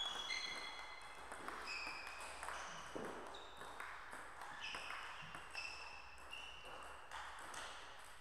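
Table tennis rally: the ball clicking off the bats and bouncing on the table, about two hits a second, each with a short high ping. The rally ends near the end.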